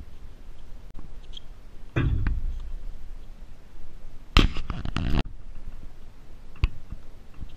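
Tennis ball struck by rackets during a doubles rally: sharp single pocks about a second in and again near the end. Between them come two louder bursts of rushing noise on the microphone, at about two seconds and for most of a second after four and a half seconds.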